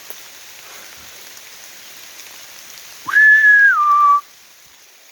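Steady rain pattering. About three seconds in, a loud two-note whistle sounds close by: a held high note that steps down to a lower held note, lasting about a second.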